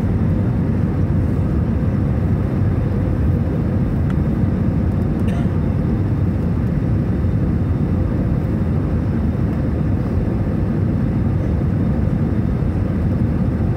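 Steady low rumble of an Airbus A320's engines and rushing air, heard inside the passenger cabin on the approach to landing.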